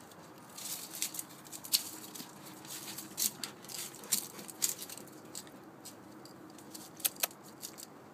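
Dry fallen leaves crackling and rustling in irregular bursts as a puppy paws and noses through them.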